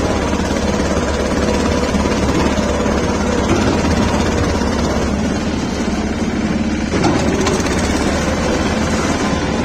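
A 5.5 hp two-wheel tractor's engine running steadily under way as it pulls its trailer over a rough dirt track, with a short bump about seven seconds in.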